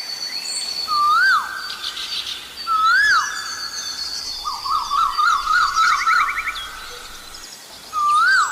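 Asian koel calling: three loud notes that each rise and then drop, about a second in, about three seconds in and near the end. Between them is a rapid run of up-and-down notes, over a background of other small birds whistling and trilling.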